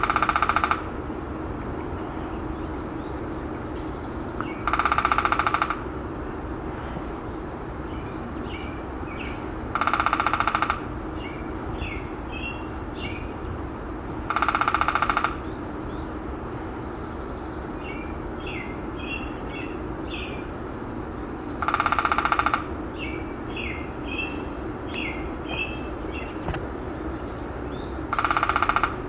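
Downy woodpecker drumming: six short rolls of rapid taps on wood, each about a second long, coming roughly every five seconds. Other birds call between the rolls with short falling whistles and chips.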